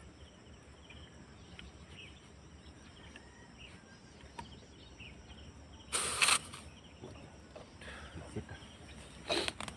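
Faint outdoor background, broken about six seconds in by a single loud burst of noise lasting about half a second, with a shorter one near the end.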